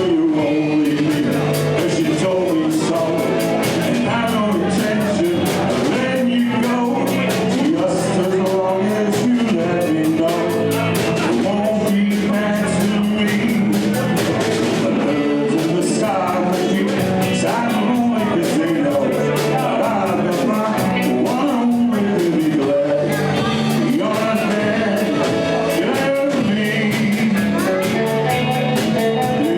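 Rock-and-roll band playing live, with singing over guitar and a steady drum beat.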